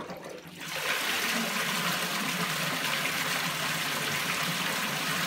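Pumped water gushing from the perforated PVC spray pipe of a homemade fleece filter and splashing onto the filter fleece. It begins with a click and rises within the first second to a steady rush.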